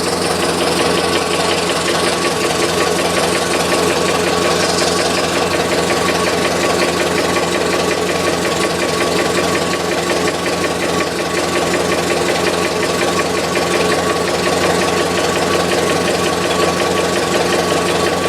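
Car engine idling steadily with a fast, even knock ticking through it: the engine knock the owner is trying to locate.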